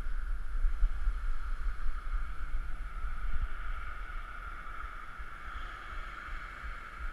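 Wind buffeting a GoPro Hero 3 Black's microphone: an uneven low rumble that eases off after about four seconds, over a steady hiss.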